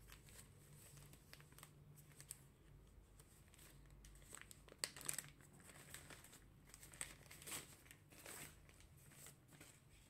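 Faint crinkling and rustling of a frosted plastic packaging bag as it is handled and a folded travel pouch is pulled out of it: irregular soft crackles, loudest about halfway through.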